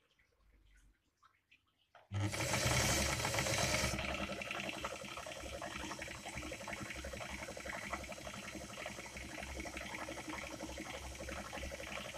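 Singer 319K zigzag sewing machine starts about two seconds in and runs fast and steady, stitching a decorative zigzag embroidery pattern: a rapid needle clatter with a motor hum underneath.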